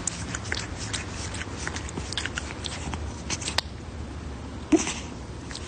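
A cat pawing and batting at the recording phone close to its microphone: a run of light irregular clicks and rubs, with one louder bump near the end.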